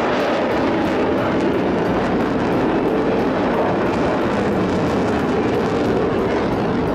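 Jet fighter flying past in a display, its engines making a loud, steady rush of jet noise.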